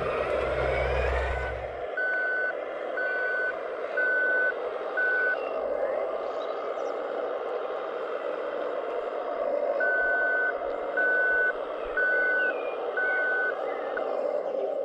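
Reversing beeper of an RC scale tipper truck's sound module, one steady beep about every second in two runs with a pause between, over the steady hum of the truck's simulated engine. A low rumble stops about two seconds in.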